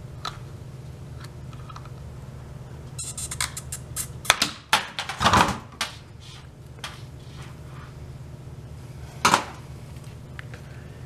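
Fuel pump assembly of a 2013 Suzuki GSX-R600 being pried apart with a small screwdriver: plastic housing clicking and snapping as it comes off the pump, in a run of sharp clicks about three to six seconds in, loudest near four and five seconds, then one more sharp click near nine seconds.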